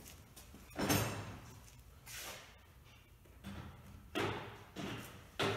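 Tools being put away: a handful of separate knocks and clunks, the loudest about a second in.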